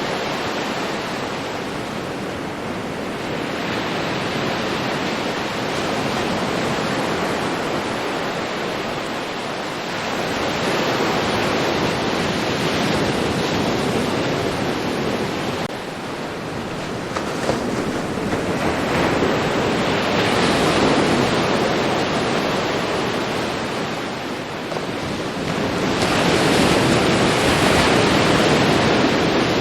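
Ocean waves breaking and washing up a beach: a continuous rush of surf that swells and ebbs in slow surges every several seconds.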